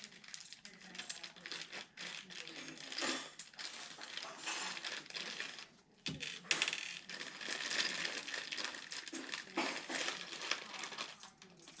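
Handling noise while assembling a PC: a run of small hard parts clicking, tapping and clinking, with some rustling in between.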